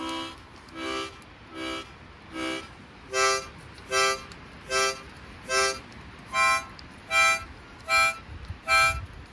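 Harmonica played in a steady beat of short chords, a little more than one a second: the first four lower and softer, then louder and higher from about three seconds in.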